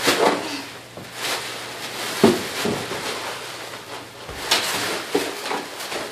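Bubble wrap and plastic packing being crumpled and shaken about by hand, rustling and crinkling with a string of irregular sharp crackles, the loudest a bit over two seconds in and another about four and a half seconds in.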